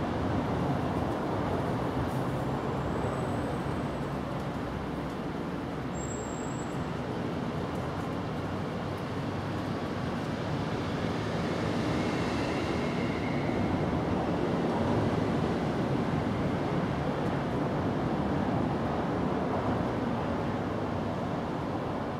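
Steady outdoor background noise, a continuous rumble and hiss, with two brief high chirps a few seconds in.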